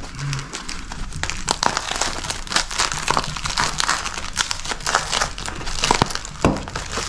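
Packing paper crinkling and rustling as it is handled and unwrapped by hand, in irregular crackles.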